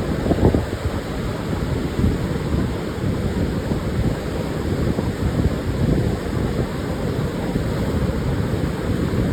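Pacific Ocean surf washing steadily onto a sandy beach, a dense low wash with no single break standing out, while gusts of wind buffet the microphone.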